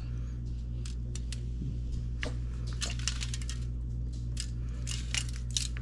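Brown sugar crumbs and fingertips lightly ticking and crinkling on the aluminium foil lining a baking pan, in scattered small clicks, over a steady low hum.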